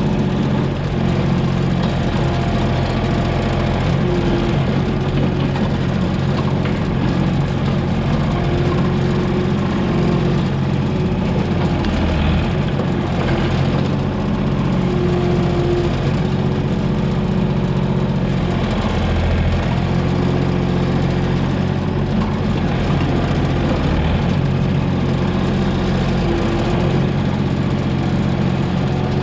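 Komatsu PC28 mini excavator's diesel engine running steadily at working speed, with a higher whine that comes and goes as the machine works.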